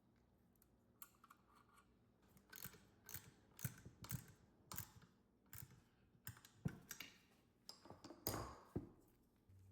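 A run of irregular light clicks and short scrapes, about fifteen in all, spread unevenly from about a second in until near the end.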